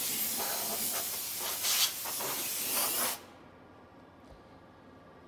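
Compressed air hissing from a blow gun as chips are blown off a metal lathe's bed, surging a little, then cutting off suddenly about three seconds in.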